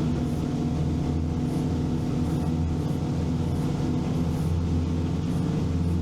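Veter 6x6 six-wheeled all-terrain vehicle driving at about 60 km/h: steady engine and drivetrain drone.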